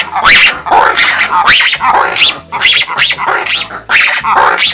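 Black-and-white ruffed lemurs giving their roar-shriek chorus, the loud call they use to communicate with each other: a run of harsh barking shrieks, each rising in pitch, about two and a half a second.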